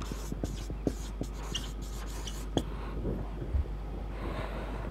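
Marker pen writing on a whiteboard: short taps and scratchy strokes as words are written out, mostly in the first three seconds, over a steady low hum.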